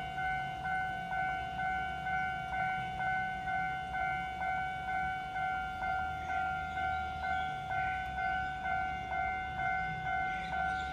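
Railway level-crossing warning bell ringing in an even, steady rhythm of about two strokes a second, warning that a train is approaching.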